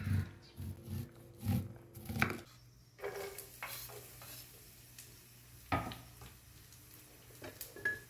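A knife cuts kernels off a corn cob onto a wooden board, about five thumping strokes in the first two and a half seconds. Then oil sizzles faintly in a frying pan on a gas stove, with one sharp knock near the middle and a few light clicks near the end.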